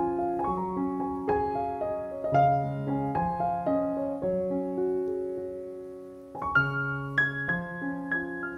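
Background piano music: slow single notes and chords, dying away about two-thirds through before a new phrase begins.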